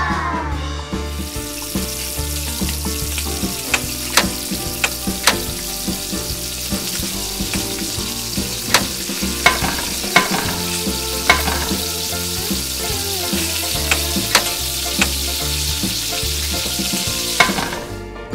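Food sizzling as it fries in a pan: a steady hiss that starts about a second in and stops just before the end, with scattered sharp clicks of a spatula against the pan.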